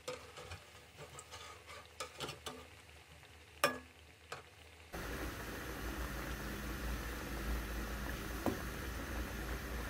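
Wheat-flour biscuits deep-frying in hot oil in a metal wok, with a slotted metal spoon clicking against the pan as they are turned over, one sharp clink near the middle. About five seconds in the oil's sizzle jumps much louder and goes on as a steady hiss.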